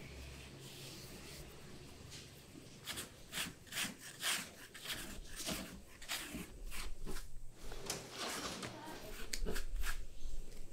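Plastic-gloved hands packing shredded cabbage filling into bun dough and pleating it shut: irregular crinkling and rustling that starts about three seconds in.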